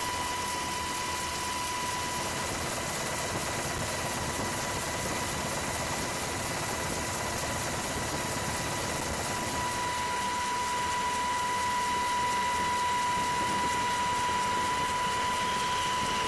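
Steady engine drone with a constant high whine.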